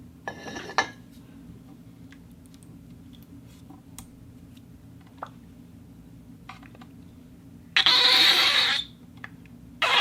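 Foley handling of a glass plate and silicone pieces: a short scrape about half a second in and a few light taps, then a loud, rough, squeaky rub lasting about a second near the end, which starts again just before the end.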